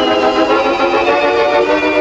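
Cartoon background score: sustained chords, with one high note gliding slowly downward.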